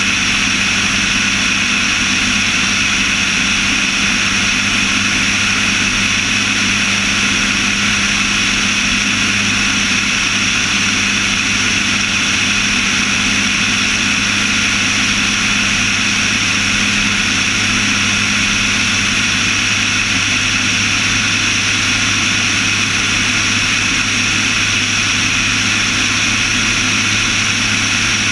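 Light propeller aircraft's engine and propeller droning steadily in flight, holding one even pitch with no change in power.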